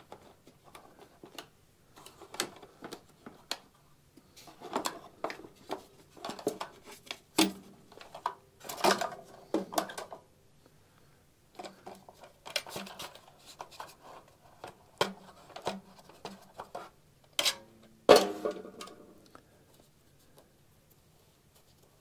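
Irregular plastic clicks, taps and rattles of a small gas engine's Quad-Clean air-cleaner cover being unclipped and its foam pre-filter and paper filter lifted out, with one sharp knock about eighteen seconds in.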